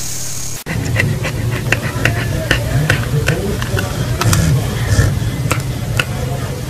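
A short hiss, then irregular clicking and sucking noises from a dog mouthing a pacifier, over a low steady hum.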